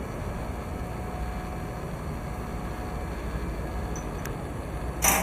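Steady low rumble of workshop machinery, with a short loud burst of hissing noise near the end.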